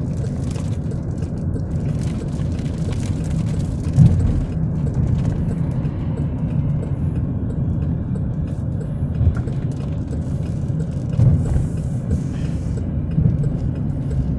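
Steady low rumble of a car driving, heard from inside the cabin, with a brief thump about four seconds in and a few lighter knocks later.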